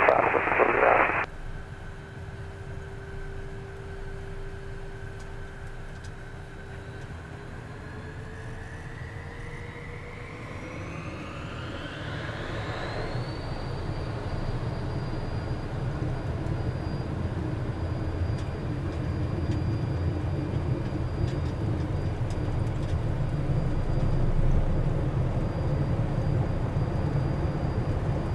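Premier 390 business jet's twin Williams FJ44 turbofans spooling up for takeoff: a steady whine rises in pitch over several seconds, starting about a quarter of the way in, then holds high while a low rumble grows with the takeoff roll. A short loud burst of radio noise opens it.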